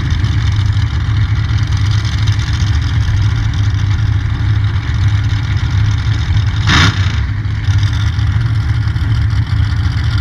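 Mega truck engines running at the starting line, a steady low rumble, with one short sharp burst about seven seconds in.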